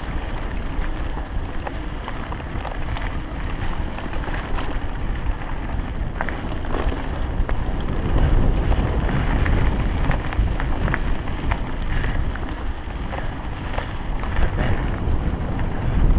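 Wind buffeting a GoPro's microphone on a moving mountain bike, with scattered clicks and rattles from the bike over rough trail. It gets louder about halfway through, as the ride speeds up.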